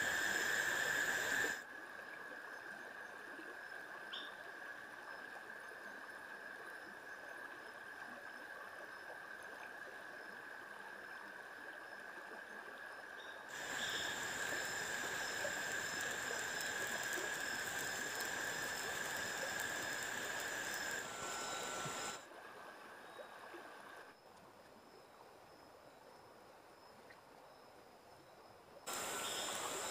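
Night ambience of a flowing river, with insects singing one steady high note over it. The level jumps up and down abruptly several times.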